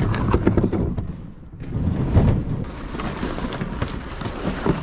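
Kayaks and hunting gear being dragged and handled over dirt and dry grass: irregular scraping and knocking over a low rumble. The sound dips briefly about a second and a half in, then comes back louder.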